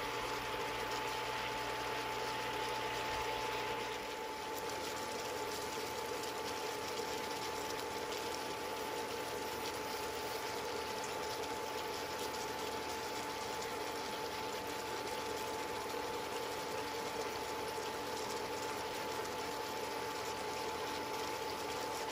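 Chicken adobo simmering in a pan on an induction cooktop: a steady bubbling hiss with a constant hum underneath.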